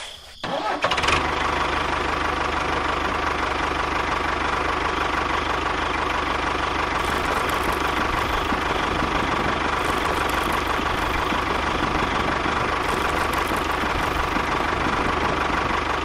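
A motor starts up about half a second in and then runs steadily, an even drone with a constant tone.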